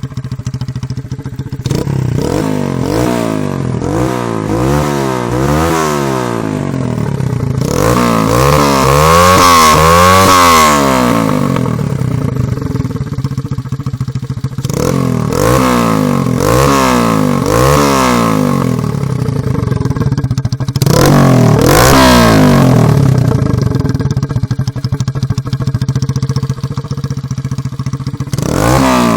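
Barton Volcano 125cc motorcycle engine being revved over and over: short throttle blips that rise and fall in pitch, with one longer, higher rev about eight to eleven seconds in, settling back to a steady running note between bursts.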